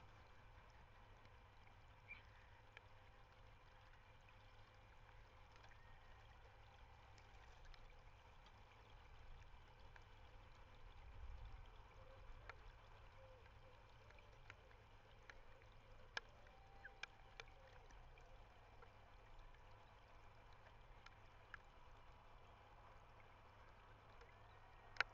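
Near silence: faint outdoor ambience picked up by a webcam microphone, with a few faint, short clicks.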